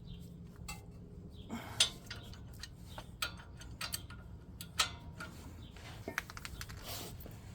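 Scattered light metallic clinks and taps of tools and brake hardware being handled, with two sharper clinks about two and five seconds in.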